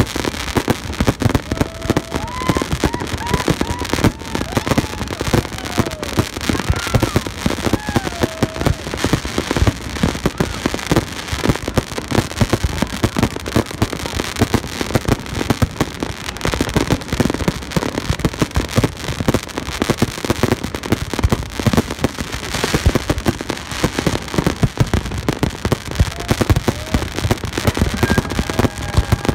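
Fireworks display going off in a dense, continuous run of bangs and crackles.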